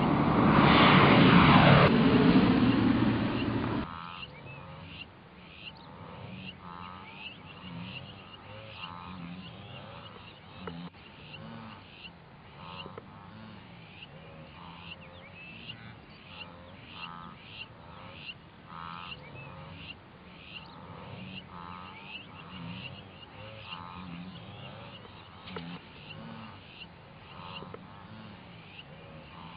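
Single-engine Cessna Caravan turboprop taking off and passing, loud, its pitch falling, cut off abruptly about four seconds in. Then a wildebeest herd grunting: short nasal calls repeating about once a second.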